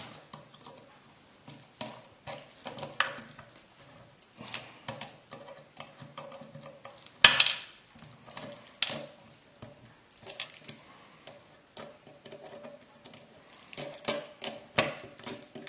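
Two pairs of pliers clicking and scraping on a stainless split pin as its legs are bent round to lock a clevis pin: irregular small metallic clicks, with one louder snap about seven seconds in.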